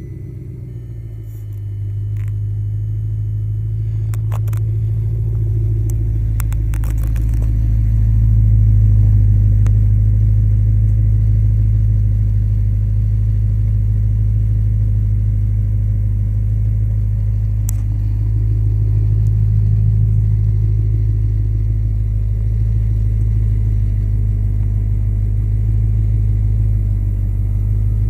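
2009 Audi R8's 4.2-litre V8 running warm through a Stasis aftermarket exhaust, a deep, steady rumble at idle. The level builds over the first several seconds, and the engine note lifts briefly about twenty seconds in.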